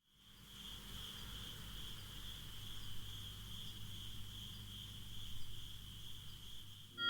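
Crickets trilling steadily in one high, continuous band that fades in, with a low hum underneath; synth music cuts in at the very end.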